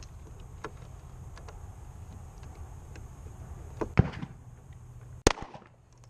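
Two pistol shots just over a second apart, each a sharp crack with a short ring-out, over a low steady hum with a few faint clicks.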